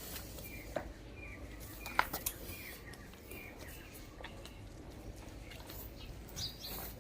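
Small birds chirping in short, repeated notes, with two sharp clicks, the louder one about two seconds in.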